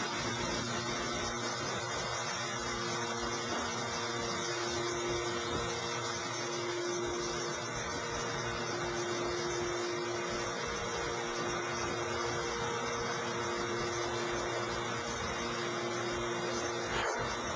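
Steady mechanical hum and hiss of plant machinery, with a few steady tones that fade in and out. A short bump near the end.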